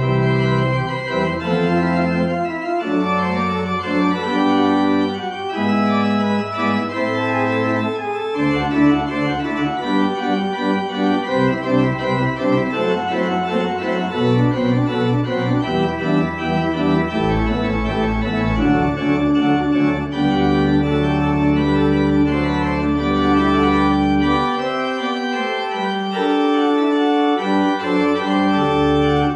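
Organ playing a closing voluntary after the dismissal, full sustained chords with many moving parts over deep bass notes that drop out for a couple of seconds near the end.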